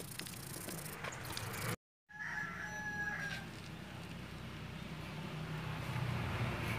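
A rooster crowing once, about two seconds in, over a steady low background hum; before it come a few light metallic clicks from a brake pad being handled.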